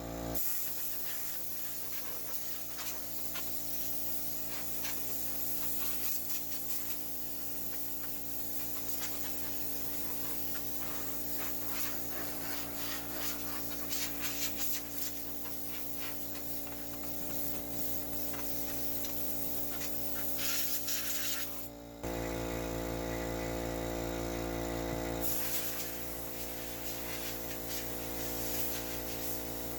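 A steady hiss of air being blown through a gas furnace's control section to clear dust from its motors and moving parts.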